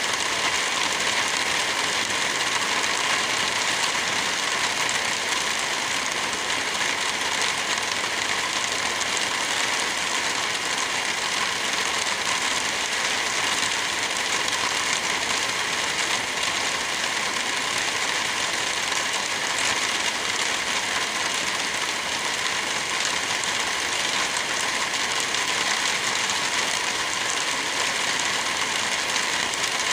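Steady heavy rain, a dense even hiss, with faint crackling from a fireplace mixed in.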